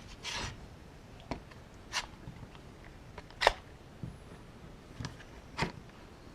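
Irregular sharp clicks and light knocks, about six of them spread unevenly, the loudest about three and a half seconds in.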